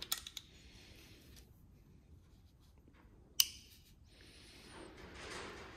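Quiet handling of a mower's red plastic recoil starter as its pulley is wound by hand against the recoil spring, which is getting stiff: a few small clicks, one sharp plastic click about three and a half seconds in, then soft rubbing.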